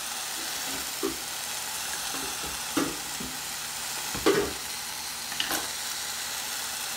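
Floured beef roast sizzling steadily in hot olive oil in a Ninja Speedi pot on its sear setting, with a few light knocks.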